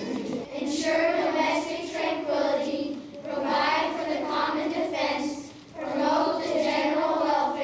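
A group of children singing together in unison, in held phrases with short breaks about three and five and a half seconds in.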